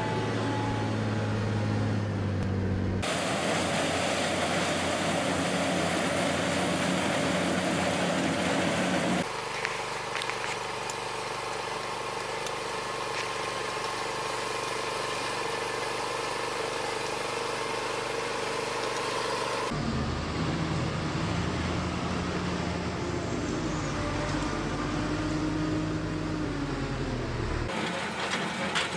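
Farm machinery running, the sound changing abruptly every few seconds as one machine gives way to another: first a Volvo wheel loader's diesel engine, then other harvest machines, among them a leek harvester. In the later part an engine's pitch rises and falls.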